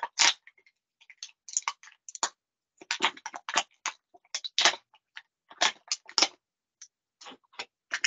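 Plastic blister packaging crackling and clicking as an action figure is worked free of its plastic tray: irregular sharp clicks and crinkles in uneven clusters.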